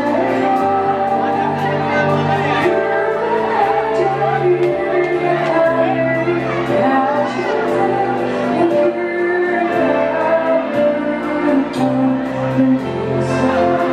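A woman singing live with a band: her voice carries the melody over drums, electric guitar and keyboards, with steady bass notes and a regular drum beat.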